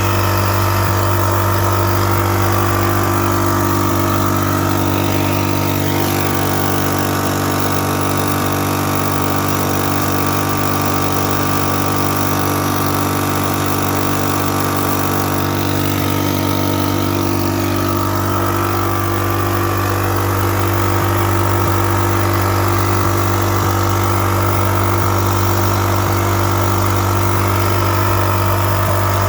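Microlite 2800 portable generator engine running steadily, its pitch wavering a little a couple of times: the surging that goes with its fault of dying after a few minutes.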